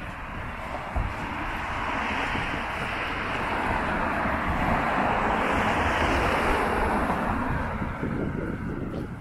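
Cars passing on a road, their tyre and engine noise swelling to a peak mid-way and fading near the end, with wind rumbling on the microphone.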